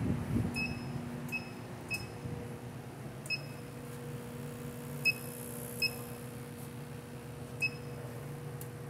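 Short single-pitched beeps, seven at irregular spacing, from the button keypad of a Bacharach multi-zone refrigerant gas monitor as its buttons are pressed. A steady machinery hum runs underneath.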